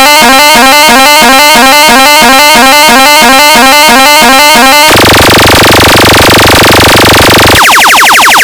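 Electronic car-audio competition track played at full level. It is made of fast repeating synthesized tone patterns, about three a second. From about five seconds in, a harsh, horn-like buzzing drone takes over for two and a half seconds, then the tone patterns return.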